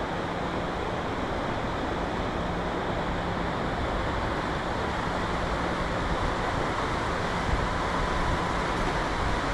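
Steady rush of water pouring over a river weir, an even, unbroken roar of falling water.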